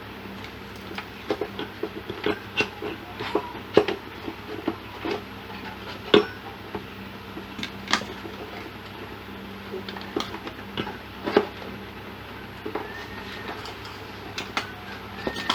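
Irregular light clicks and taps, a dozen or more at uneven spacing, over a steady low hum.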